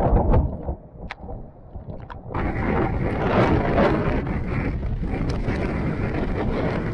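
Hurricane-force eyewall winds with torrential rain: gusts buffet the microphone as a low rumble with a few clicks, then about two seconds in the sound suddenly opens into a loud, steady rush of wind and driving rain.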